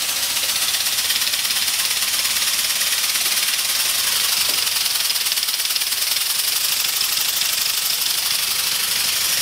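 3D-printed GT Mini compressed-air piston engine running flat out on 40 PSI shop air, spinning its propeller: a steady, loud hiss of escaping air with a very fast, even rattling pulse.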